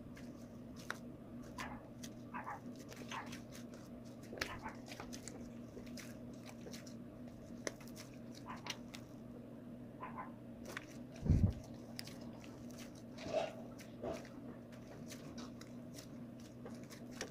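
Homemade glue-and-flour slime being kneaded and squeezed by hand: faint scattered sticky clicks and squelches over a steady low hum, with one louder low thump a little past the middle.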